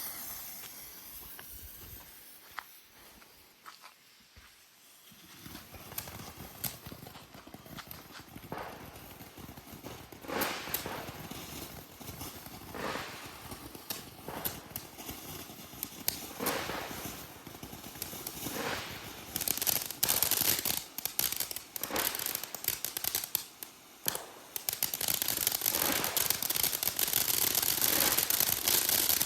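Consumer firework going off after its fuse is lit. After a few quiet seconds come separate pops every two or three seconds, and from about two-thirds of the way in, a dense, loud crackling that keeps going.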